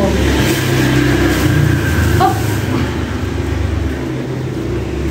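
A steady low engine hum whose pitch shifts slightly now and then, with a brief high squeak about two seconds in.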